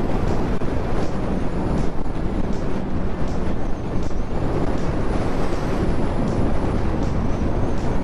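Honda CB650R's inline-four engine running while the motorcycle is ridden on the highway, with a steady rush of wind and road noise over the camera microphone.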